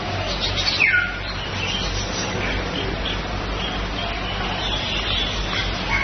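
Several birds chirping and twittering, with one loud call sliding down in pitch just under a second in, over a steady low hum.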